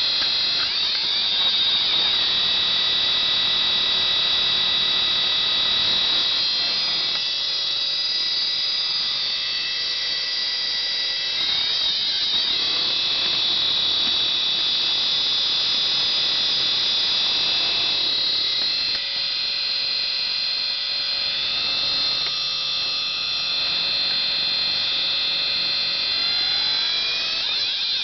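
Opened-up old hard drive spinning with fingers pressed on its platters, giving a loud, high-pitched screech of several tones at once. Its pitch sweeps briefly near the start, about twelve seconds in, and near the end.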